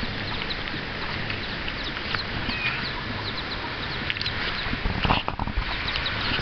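Feral chickens calling around the camera, a stream of short, quick chirps and clucks, over a steady rushing noise. A few sharp knocks come about five seconds in.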